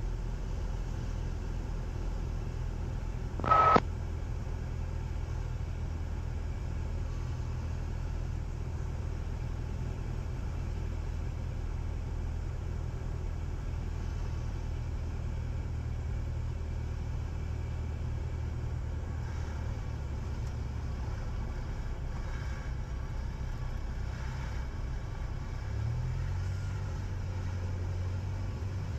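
Cessna 172 engine droning steadily at low power, heard from inside the cabin during the landing approach. About three and a half seconds in comes a brief loud beep. Near the end the low note shifts up in pitch as the plane settles onto the runway.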